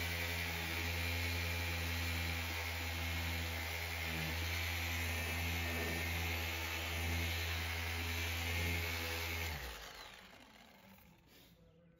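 Cordless polisher with a white ultra-fine foam pad running steadily with fine polish on a car's ceramic-coated paint: a constant motor hum with a high whine, polishing out a scuff of paint transfer. Switched off about nine and a half seconds in, the motor winds down and stops.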